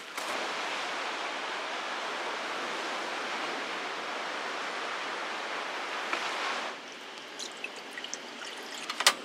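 Water running steadily, as from a tap or a pour, that stops abruptly about seven seconds in. A few light clicks follow, then one sharp click near the end.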